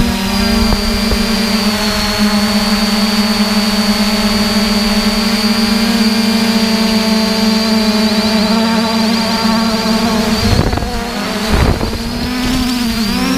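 Camera drone's electric motors and propellers giving a steady, loud buzz, close to the camera it carries. A little past two-thirds through the buzz dips briefly and its pitch wavers as the motors change speed while the drone banks.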